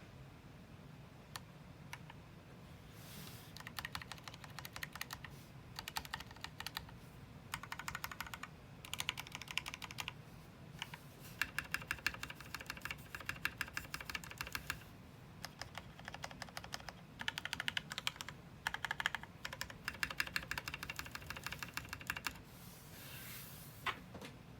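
Typing on a Matrix 8X v2.0 mechanical keyboard with lubed Gateron Ink Black linear switches, an aluminium plate, PBT keycaps and no sound dampening. The keystrokes come in quick runs of one to three seconds with short pauses between, and a few lone clicks near the start and the end.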